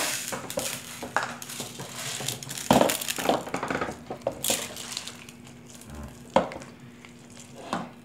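Sticky glitter slime with plastic beads and gems being mixed and kneaded in a bowl: irregular clicks, clinks and scrapes of the beads and utensil against the bowl.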